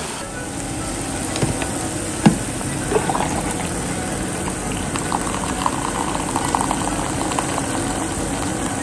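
Hot water streaming from an electric thermo pot into a cup, over beef sizzling in a frying pan on an induction hob. A few sharp clicks come in the first three seconds, and a patter of small pops a little past the middle.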